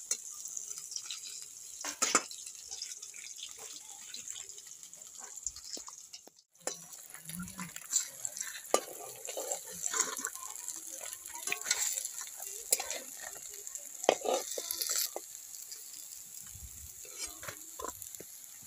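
Fish steaks frying in hot oil in a metal wok, a steady sizzle. A metal spatula scrapes and clinks against the pan over and over as the pieces are turned and lifted out.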